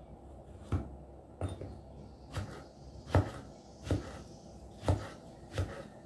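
Kitchen knife chopping vegetables on a wooden board: seven sharp strikes, about one every three-quarters of a second.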